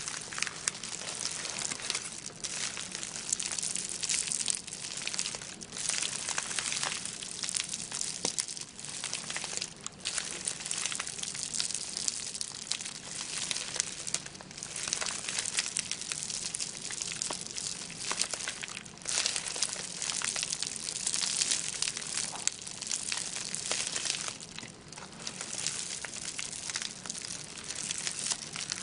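Paper scraps and paint sample cards being handled and shuffled by hand: continuous crinkling and rustling, full of small crackles, with a few brief lulls.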